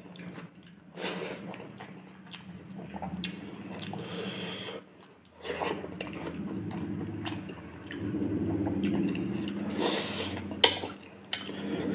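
Close-up eating sounds: fingers squishing and mixing rice and fish curry on the plate, then wet chewing and lip smacks as a handful goes into the mouth near the end.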